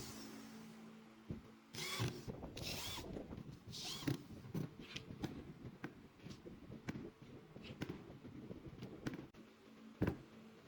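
Short bursts of a power tool working wood, with scattered clicks and light knocks in between, and one sharp knock near the end.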